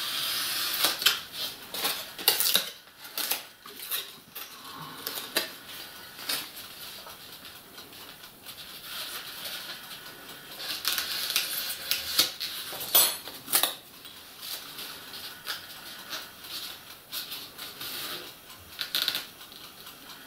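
Styrofoam sheets being handled, pressed and scraped by hand: irregular scratching, rubbing and small clicks, with a high hiss that fades out about a second in.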